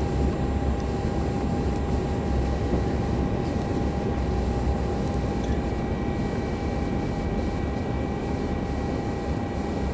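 Jet airliner cabin noise heard from a window seat as the plane moves along the ground: a steady, low rumble of engines and air with a faint steady whine over it.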